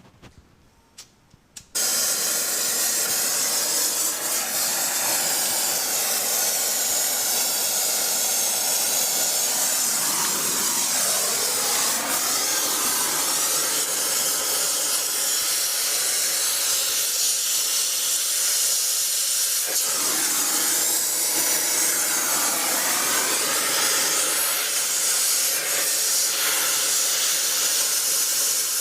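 Loud steady hissing noise that starts abruptly about two seconds in and runs on with slow, slight shifts in pitch.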